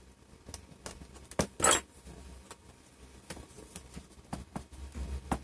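Scattered small clicks and taps of hands working on a laptop's plastic screen bezel, with one louder, slightly longer noise about one and a half seconds in.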